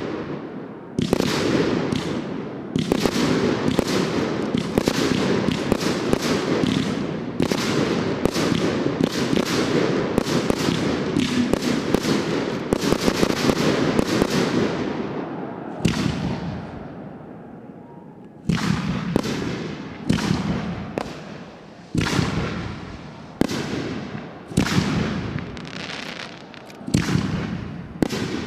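Aerial firework shells bursting: a dense, rapid barrage of bangs for about the first half, fading to a short lull, then single bangs roughly a second apart, each followed by a rolling echo.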